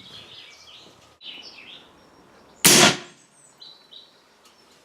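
A single gunshot about two and a half seconds in, sharp and loud, dying away over about a third of a second.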